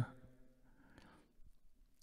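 Pause in a man's speech over a handheld microphone: the last word fades out at the start, then faint room tone with a soft breath about a second in.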